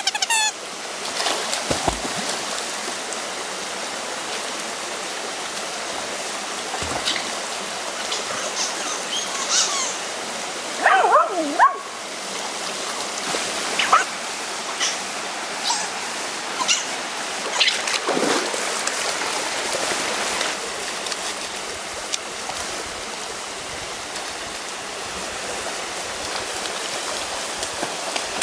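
River water running steadily, with splashing as dogs swim, and a dog's high-pitched yelps and whines, a burst of several about eleven seconds in and a few single cries later.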